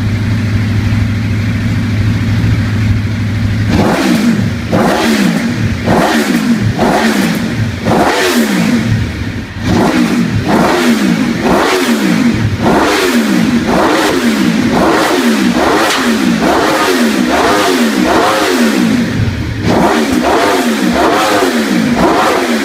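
Aprilia RSV4's V4 engine idling, then revved hard in repeated throttle blips from about four seconds in. Each blip is a sharp rise and fall in pitch, about one a second, with a brief drop back to idle about three-quarters of the way through.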